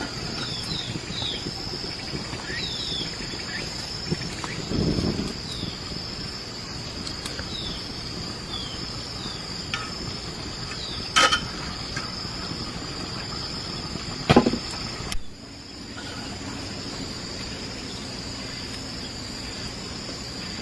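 Steady high-pitched insect drone of a forest, with short falling chirps and a few sharp knocks and a dull thump from handling things nearby.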